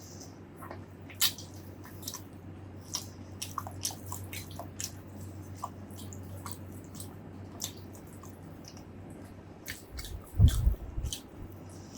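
Close-miked eating sounds: chewing with many wet mouth clicks and squishes. A heavier low thump comes about ten seconds in.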